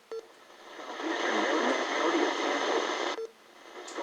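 Static hiss from a weather radio receiver with no broadcast coming through. It swells in over the first second, holds steady, then cuts off suddenly a little after three seconds, followed by a short low beep.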